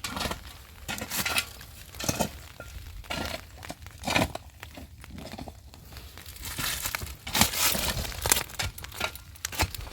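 Irregular rustling, crinkling and clinking handling noises, with scattered sharp knocks, busiest in the second half.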